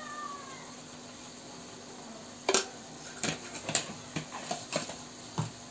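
Metal kitchen utensils clinking and knocking, a run of about eight sharp clinks starting about two and a half seconds in, over a faint steady hum.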